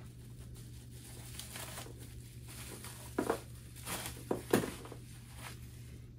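Clear plastic packaging bag crinkling in a few short rustles, loudest between about three and four and a half seconds in, as a desk control unit and its cable are pulled out of it. A steady low hum runs underneath.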